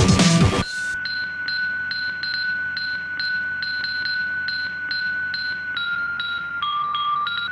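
Electronic background music: a loud drum-and-bass passage cuts off under a second in, leaving a steady high synth tone with a pinging pulse about two and a half times a second. The tone steps down in pitch briefly near the end, then returns.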